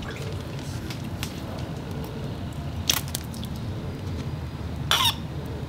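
An Asian bullfrog eating and shifting on a concrete floor: a few short crackles and clicks, the loudest about three seconds in and another burst about five seconds in, over a steady low rumble.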